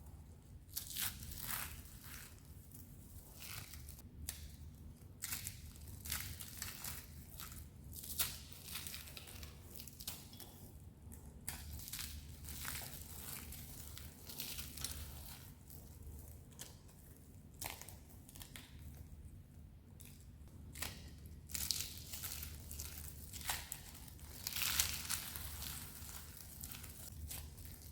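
Dry, crispy soap being crushed, a continuous run of irregular crunches and crackles, with the loudest crunches about three-quarters of the way through.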